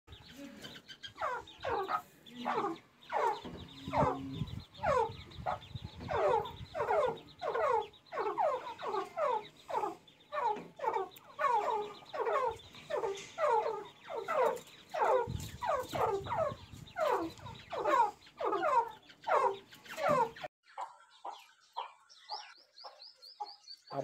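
Partridges (teetar) calling in a rapid, regular series of falling calls, two or three a second, which stops abruptly about 20 seconds in; fainter, scattered bird calls follow.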